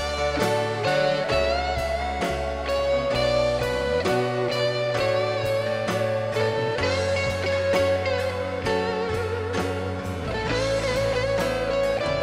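Rock band playing an instrumental intro: a lead guitar with gliding, wavering notes over bass and a steady drum beat of about two hits a second.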